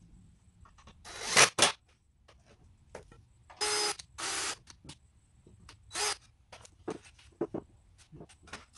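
Cordless drill run in short bursts into a pine board: a rising burst about a second in, two brief runs back to back a little later, and one more near the middle. Light clicks and knocks of the wood and tool being handled follow.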